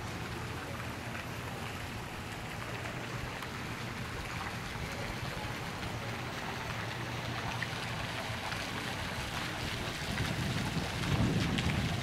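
Steady hiss of splashing water, growing louder with a low rumble from about eleven seconds in.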